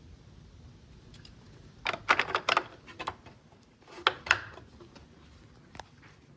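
Small hard parts handled: two short flurries of sharp clicks and clatter, about two seconds in and again about four seconds in, then a single click near the end.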